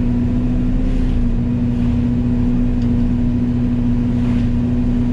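Yanmar Vio80 excavator's diesel engine and its hydraulic Fecon FMX36 forestry mulching head running steadily under load, with a constant low hum.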